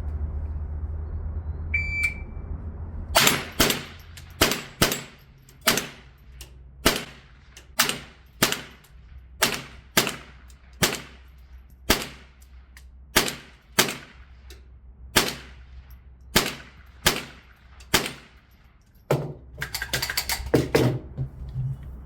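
A shot-timer beep, then a .22LR firearm firing a rapid string of about two dozen shots at steel targets, roughly two a second. Near the end comes a quick clatter of clicks and knocks.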